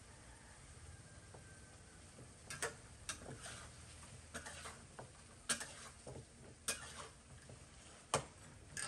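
Metal spatula scraping and clanking against a metal wok as sliced carrots are stir-fried, irregular strikes starting about two and a half seconds in, over a faint steady sizzle.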